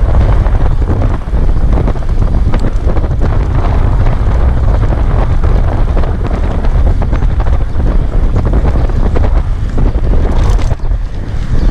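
Loud, steady wind rumble buffeting a moving camera's microphone, with a rushing hiss over it.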